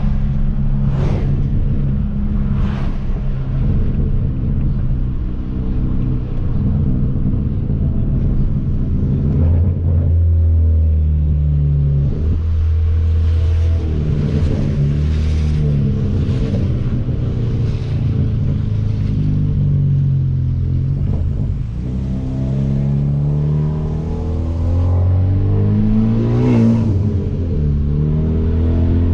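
Hyundai Veloster Turbo's turbocharged 1.6-litre four-cylinder with a catless downpipe exhaust, heard from inside the car with the windows down while driving. The engine note holds steady at first, then from about ten seconds in rises and falls several times as the car accelerates and eases off.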